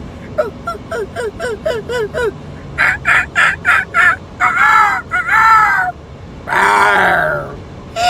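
A man imitating poultry with his voice: a quick run of short warbling notes, then several louder short calls, and a long harsh call near the end.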